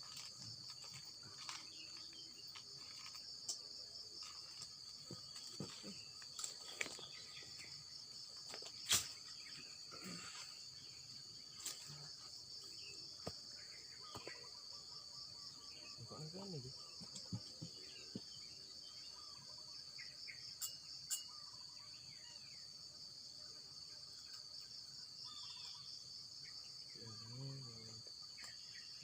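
A steady, high-pitched trilling of insects carries on throughout, with a few faint scattered clicks.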